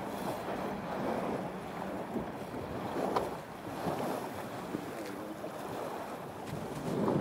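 Wind buffeting the microphone and choppy sea water washing against a small open boat's hull: a steady rush with a few faint knocks.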